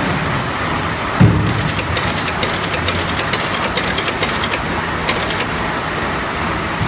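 Automatic metal button riveting machine running, its press clicking rapidly in quick runs as it sets metal buttons along a fabric strip, over a steady motor and workshop drone. A single low thump sounds about a second in.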